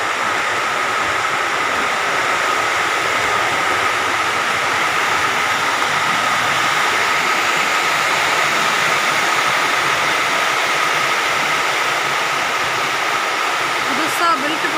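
Heavy rain pouring steadily, splashing onto a flooded concrete rooftop terrace. There is a short click near the end.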